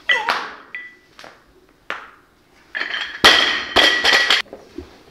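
Loaded barbell with rubber bumper plates coming down onto the lifting platform: sharp knocks near the start, then about three seconds in a crash and a run of bounces, the steel bar and plates clattering and ringing for about a second and a half.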